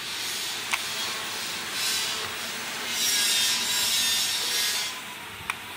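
Handling noise: a loud, scratchy rubbing that swells and fades, with two sharp plastic clicks, one about a second in and one near the end, as a wireless earbud is handled over its charging case.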